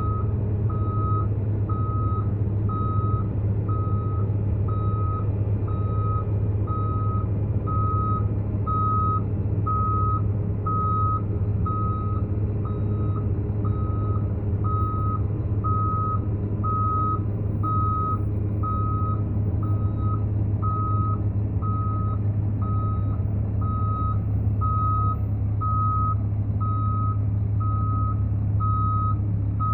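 Cat 745 articulated dump truck's diesel engine running steadily, with its reversing alarm beeping evenly at about one and a half beeps a second.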